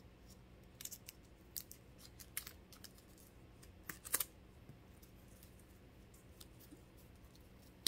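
Faint scattered clicks and small taps of a coiled charging cable being handled and unwound, the loudest a little after four seconds in.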